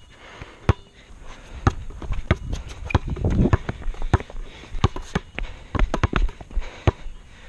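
Basketball being dribbled on an asphalt court: sharp bounces at an uneven pace of about one to two a second.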